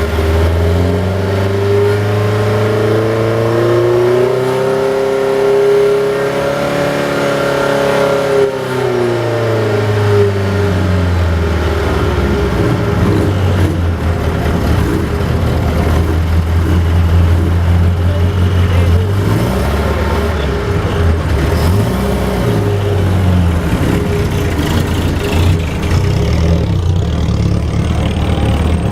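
Vintage sports car engine revved up in a static noise test: its pitch climbs over the first few seconds, holds at high revs, then drops back to idle about ten seconds in. Engine running continues after that, with more engine noise joining later.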